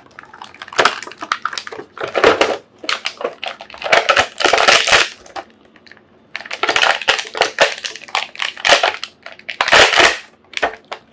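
Stiff plastic blister packaging crackling and crinkling as an action figure and its parts are pulled out of the box tray, in several bursts with short pauses between them.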